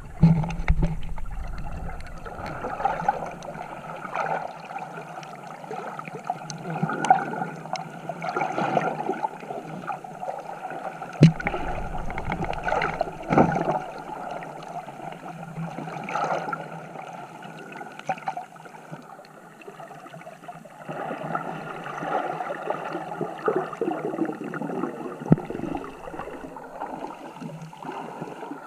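Underwater gurgling and sloshing picked up by an action camera held beneath the surface, with a few sharp clicks.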